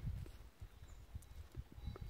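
Wind buffeting the microphone: irregular low rumbling that fades about half a second in, leaving a few faint soft thumps.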